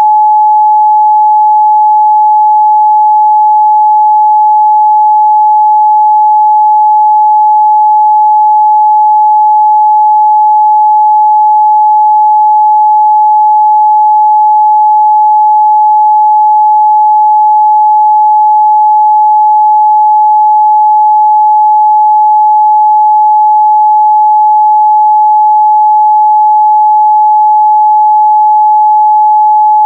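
Steady, loud 852 Hz sine test tone: a single pure pitch, unchanging, with no harmonics.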